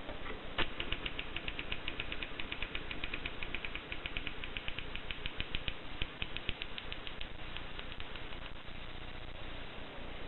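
Mercedes Selecta typewriter being typed on: a fast, even run of key strikes, several a second, which thins out about seven seconds in.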